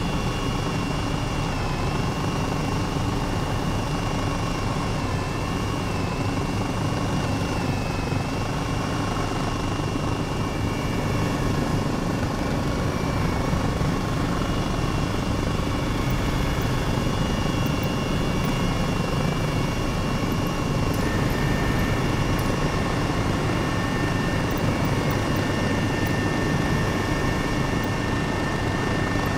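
Helicopter in flight: a loud, steady turbine-and-rotor drone with thin whining tones over it. A further whine joins about two-thirds of the way through.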